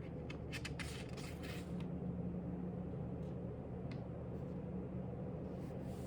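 Steady low hum of room tone with a few faint rustles and light ticks of paper being handled, clustered in the first two seconds and scattered after.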